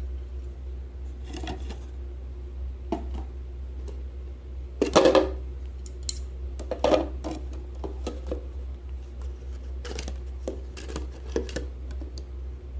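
Irregular clicks, taps and scrapes of small objects being handled, loudest in a cluster about five seconds in and again near seven seconds, over a steady low hum.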